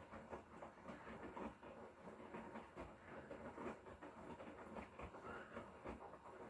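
Hotpoint Core 8 kg washing machine with an inverter motor, running a wash: faint, irregular clatter and tumbling from the turning drum.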